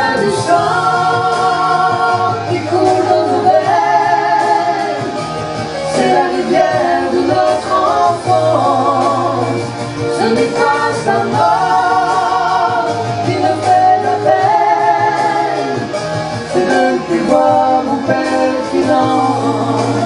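A man and a woman singing a French pop ballad as a duet into handheld microphones, over recorded backing music with a steady bass line.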